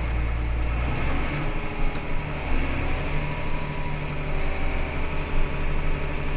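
John Deere 8210 tractor's six-cylinder diesel engine and drivetrain running steadily while driving in gear, heard inside the cab. The low hum shifts about a second in, and there is a single click about two seconds in.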